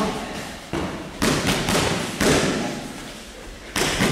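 Gloved kickboxing strikes landing on focus mitts: a series of sharp smacks, several in quick succession a little after the start, another near the end, each echoing in the hall.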